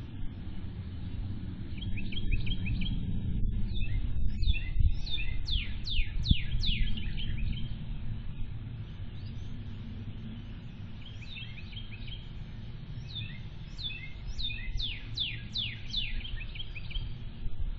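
A songbird singing two song phrases, each a run of short chirps building into several high, downward-sweeping notes, over a steady low rumble.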